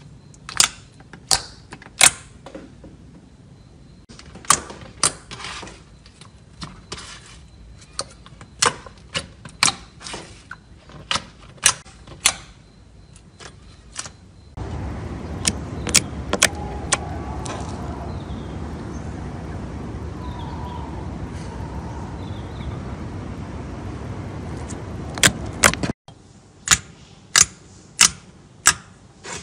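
Fingers poking and pressing slime, giving an irregular string of sharp, sticky pops and clicks. Through the middle stretch the pops are fewer and sit over a steady, louder hiss, and the clicks pick up again near the end.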